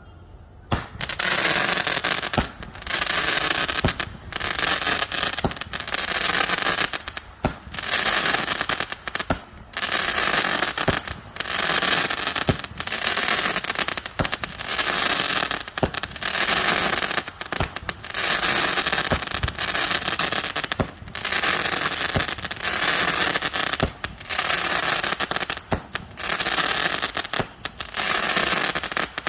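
A Kuil Brand 'Gangster' 25-shot fireworks cake firing shot after shot, about one a second, starting about a second in; each shot is a sharp bang followed by crackling.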